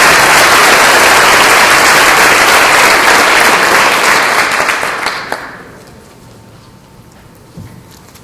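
Audience applauding, loud and steady, then dying away about five to six seconds in, leaving a quiet room with one soft knock near the end.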